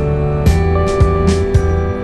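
Background music with a steady beat of about two strikes a second over a held bass line and sustained notes.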